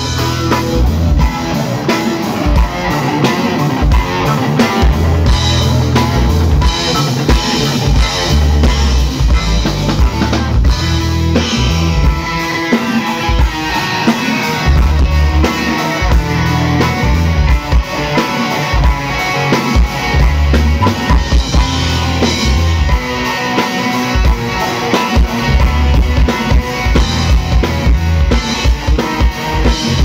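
A live rock band playing amplified instrumental music: electric guitar over a full drum kit with a steady kick drum and rimshots.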